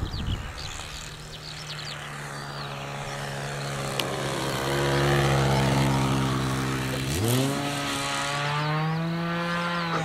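Irvine 53 two-stroke glow engine of a radio-controlled Pilatus PC-9 model plane running steadily at low throttle, growing louder as the model passes low overhead. About seven seconds in it revs up sharply and holds a higher pitch as the throttle is opened to go around.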